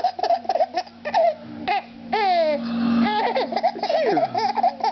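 Baby laughing in a run of short, high-pitched giggles and squeals. A steady low hum sits underneath from about halfway through.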